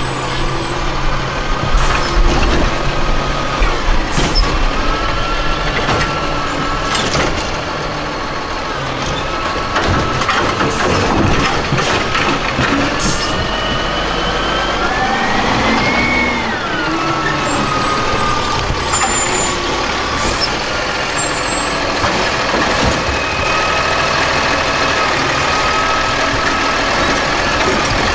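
A 2010 hybrid Peterbilt side-loader garbage truck with a Curbtender body, driving slowly with its engine running and a whine that rises and falls about halfway through. Short air-brake hisses come through now and then.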